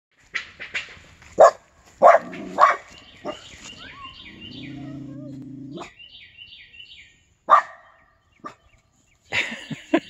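Blue heeler barking: a quick series of short sharp barks, then a pause, single barks and another burst of barks near the end. In the pause a run of quick, high, repeated chirps is heard.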